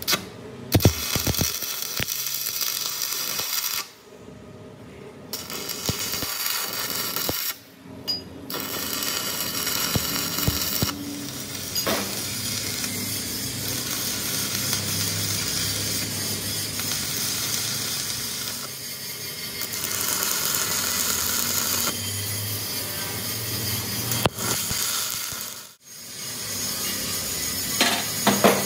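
Metal parts and hand tools clinking and scraping against each other during ball-joint work, with many sharp clicks over a steady noisy hiss. The sound cuts out abruptly a few times.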